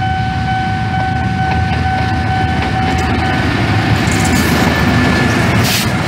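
Air horn of an approaching CC 206 diesel-electric locomotive held on one steady note, cutting off about three seconds in, over the deep rumble of the train drawing near.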